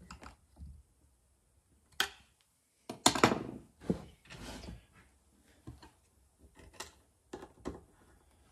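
Hand tools knocking and clattering on a wooden workbench as they are set down and picked up, with a few small clicks; the loudest clatter comes a little after three seconds in.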